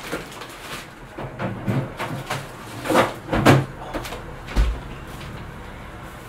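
A kitchen freezer being opened, a bag of frozen vegetables put away and the door shut: a string of knocks and rustles, the loudest pair about three seconds in, then a dull thump of the door closing.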